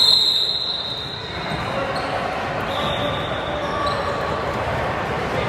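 Youth basketball game in a gym: a basketball bouncing on the court amid crowd chatter. A steady high shrill tone fades out just under a second in.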